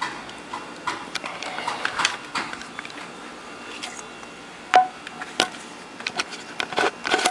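Scattered light clicks, taps and rustles of hands handling the wiring and parts inside an open car amplifier, with one sharper click about five seconds in.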